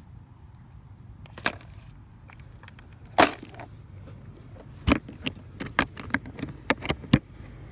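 Sharp clicks and knocks of fishing tackle being handled: hard small objects tapping and clattering, one louder knock about three seconds in, then a quick run of clicks in the last few seconds.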